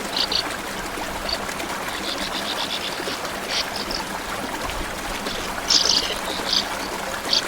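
Small stream running steadily, with short high-pitched chirps over it, the loudest about six seconds in.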